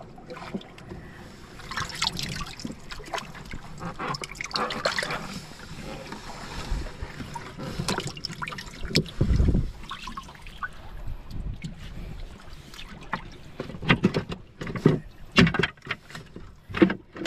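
Water splashing and trickling with irregular knocks as fish from a fish trap are handled in a boat, with a heavy thump about nine seconds in and a quick run of knocks near the end.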